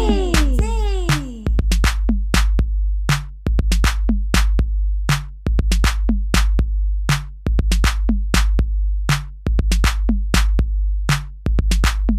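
Electronic backing music: a steady drum-machine beat with deep bass pulses, with a few falling gliding tones in the first second.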